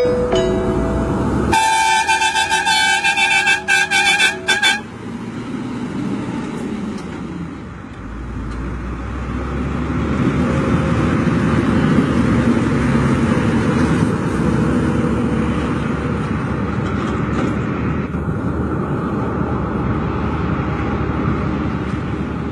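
A truck's air horn sounds for about three seconds, choppy near its end. Then a diesel truck engine runs through a straight-pipe exhaust, its rumble building from about eight seconds in and holding steady.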